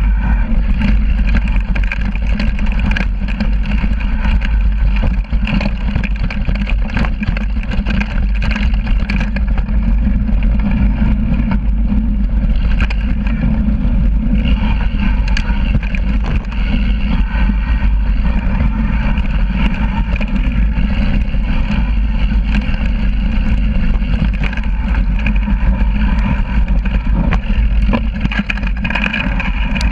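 Loud, steady wind buffeting on a bike-mounted action camera, mixed with the rumble of a Yeti mountain bike's knobby tyres rolling over rocky dirt trail and frequent small rattles and clicks from the bike.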